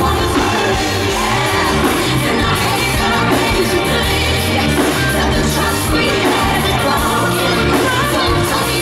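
Live pop song heard from the audience: a female singer's amplified vocal over a full band with bass guitar and keyboards, with a steady bass beat.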